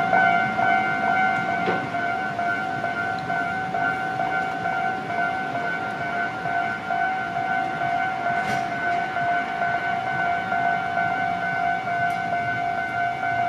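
Japanese railway level-crossing warning alarm (踏切警報機) ringing continuously, a steady electronic bell tone with one clear overtone.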